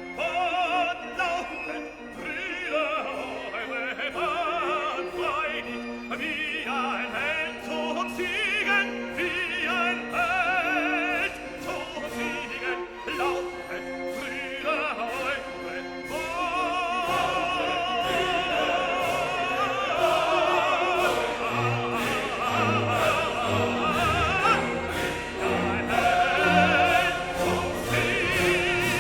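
Operatic singing with strong vibrato over an orchestral accompaniment.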